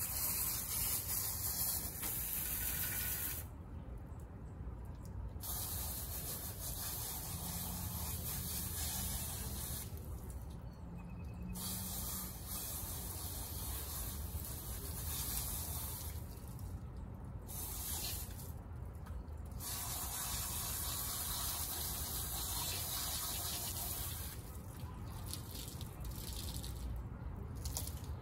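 Water spraying onto a car's bodywork during a hand wash, a steady hiss in long bursts broken by several short pauses.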